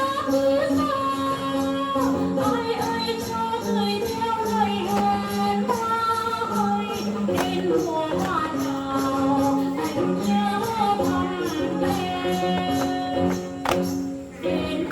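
Background music: a song with singing over instruments and a steady percussion beat.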